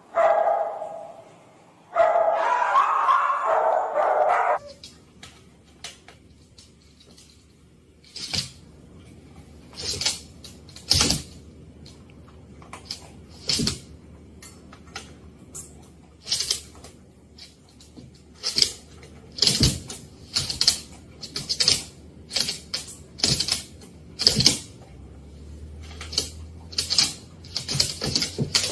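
A dog barking in loud bursts for the first few seconds, then a long run of sharp, irregular clicks and knocks over a faint low hum.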